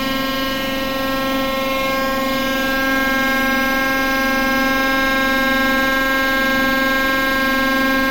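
Steady, siren-like whine from the TEP70 diesel locomotive's machinery during the engine-start sequence after repair. It holds one pitch throughout and gets a little louder about three seconds in.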